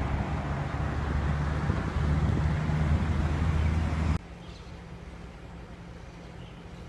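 Loud, steady outdoor rumble with a low hum, cutting off suddenly about four seconds in to a quiet outdoor background with faint bird chirps.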